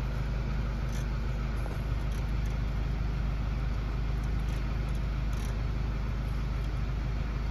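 Steady low rumble of road and running noise inside the cabin of a moving Mercedes-Benz E-Class (W213).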